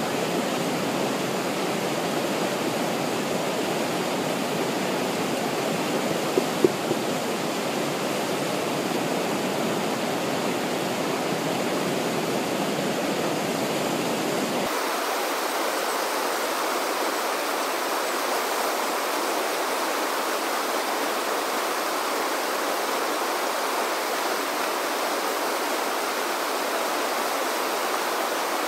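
Whitewater of a river standing wave rushing steadily. About halfway through, the low end drops away and the rush sounds thinner. Two brief knocks sound about six and a half seconds in.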